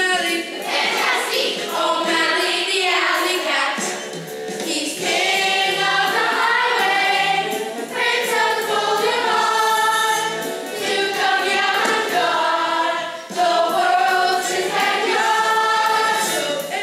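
Children singing a musical-theatre song, several voices together, over a musical accompaniment.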